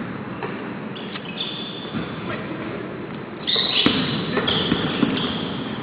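Sneakers squeaking on a hardwood gym floor in short high squeals, the loudest about three and a half seconds in, with basketballs bouncing, in a large echoing gym.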